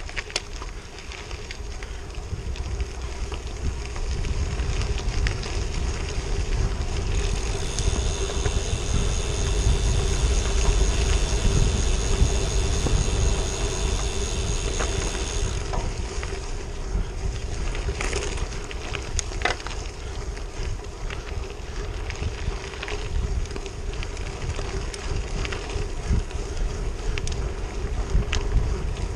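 Wind rushing over the microphone as a bicycle rolls along a wet gravel road, with the tyres crunching on the stones and scattered sharp clicks of grit. A steady hum runs underneath, and a high whine sounds for several seconds in the middle.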